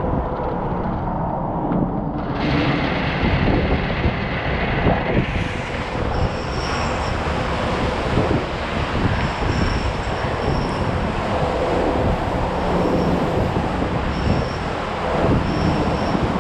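Automatic car wash spraying water over the car, heard from a camera on the car: a steady rush of water spray over a low machinery hum. The spray hiss grows brighter suddenly about two seconds in and again about five seconds in.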